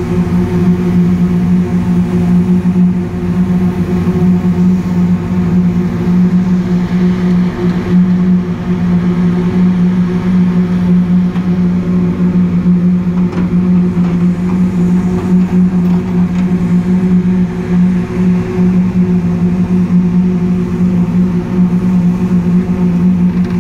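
Slipform concrete paver running close by while paving: a loud, steady machine drone with a strong low hum.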